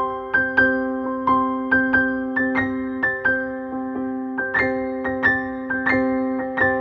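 Soft background music: a gentle electric piano playing a slow melody of struck notes, each fading away, over held chords.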